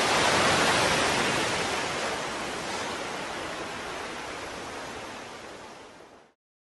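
Title-graphic sound effect: a hissing rush of noise that swells at the start, fades slowly, and cuts off abruptly about six seconds in.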